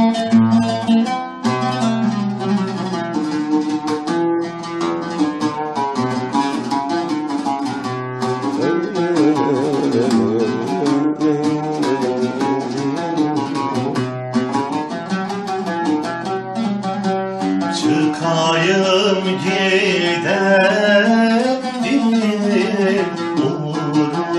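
Turkish folk music in makam Hüseyni: a plucked-string instrument plays the melody over a held bass note, and a singing voice seems to come in about 18 seconds in.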